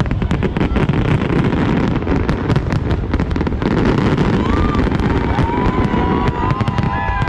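Fireworks display going off at close range: a rapid, continuous run of bangs and crackling over a heavy low rumble.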